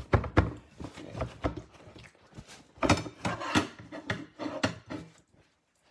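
Paper towel rubbed and patted against a raw steak on a ceramic plate to dry its surface: an irregular run of crinkling, rubbing and light knocking that dies away near the end.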